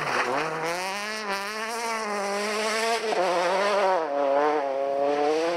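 Citroën C2 rally car's engine revving hard under acceleration, its pitch climbing and dropping several times through gear changes and lifts.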